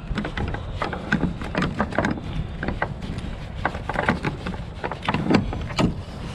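Irregular metallic clicks and knocks as the rear door hardware of a semi trailer (lock rod handles and latches) is handled, over a steady low rumble.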